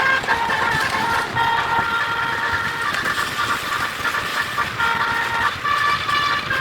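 A tour bus's basuri horn, a multi-trumpet musical horn, plays a tune. The notes are held and often sound two or three at a time, moving to a new pitch every half second to a second.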